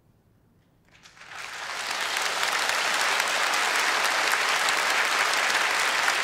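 Theatre audience applauding: after near silence, clapping breaks out about a second in and swells quickly into steady, dense applause as a play ends.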